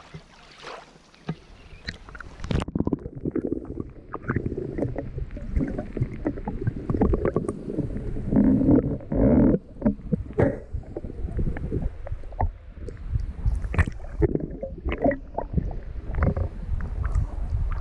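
Shallow seawater sloshing and gurgling around a camera dipped at the surface, with irregular splashes and knocks.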